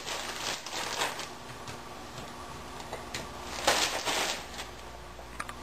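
Short rustles and light pattering as frozen diced red and green pepper pieces are handled and scattered into a pan, the longest rustle about two thirds of the way through, with a couple of small clicks near the end.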